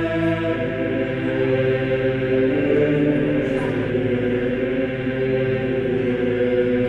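Slow, chant-like choral music of long held notes, the chord changing about three seconds in.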